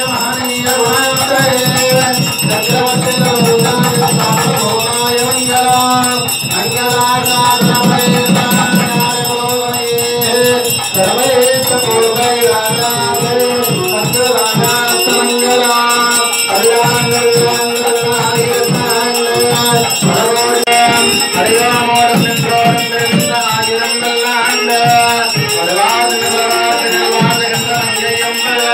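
Devotional ceremonial music: a melody line over fast drumming and rattling percussion.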